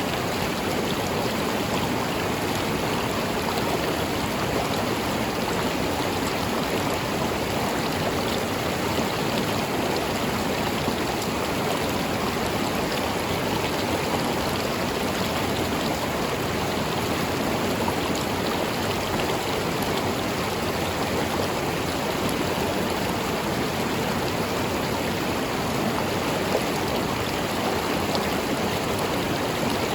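A river flowing, a steady even rush of water.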